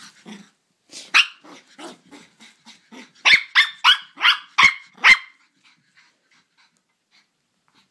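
Cavalier King Charles Spaniel puppy barking in high yaps: a few softer ones, then a quick run of about six loud, sharp barks in the middle.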